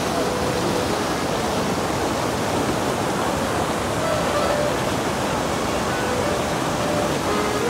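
Steady rush of a rocky waterfall cascade and rapids, heard close to the water.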